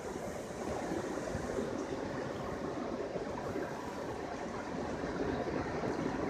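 Steady rushing outdoor background noise, heaviest in the low range, with no distinct events in it.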